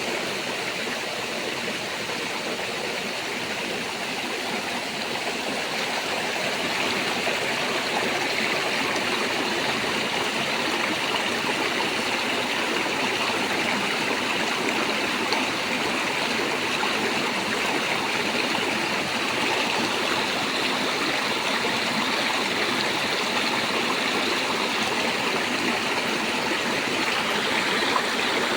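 Water rushing steadily over a small man-made waterfall, a continuous even splashing that grows slightly louder a few seconds in.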